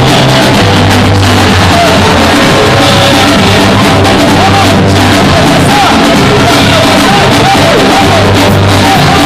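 Loud church praise music: a band with a sustained bass line, with singing over it.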